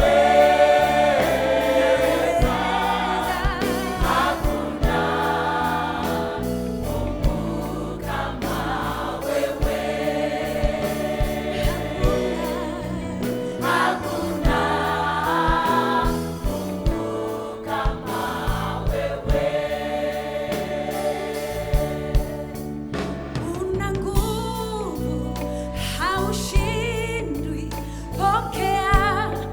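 Gospel worship music: a choir singing over a band with bass and a steady drum beat.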